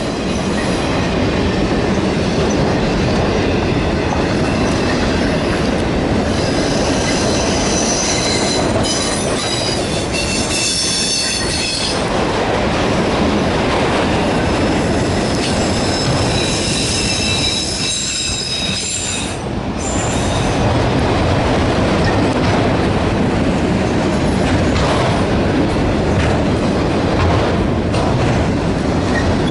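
A freight train of autorack cars rolling past close by: a continuous rumble and clatter of wheels on rail joints, with high squealing tones from the wheels that come and go.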